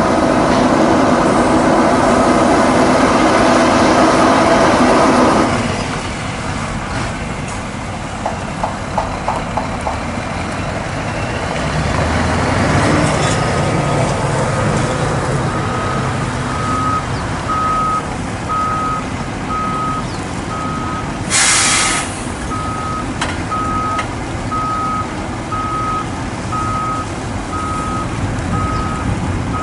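Heavy diesel truck engine running, loud and steady for the first five seconds or so, then lower. From about halfway in, a truck's reversing alarm beeps about once a second, and a short air-brake hiss comes about two-thirds of the way through.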